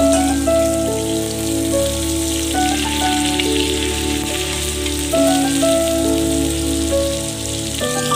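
Chicken pieces sizzling as they fry in hot oil, a steady hiss, under background music of held notes that change pitch every second or so.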